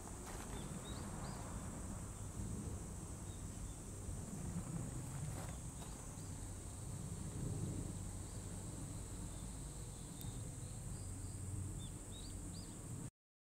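Outdoor ambience: a steady high insect drone over a low rumble, with a few short faint chirps scattered through it. The sound cuts off suddenly near the end.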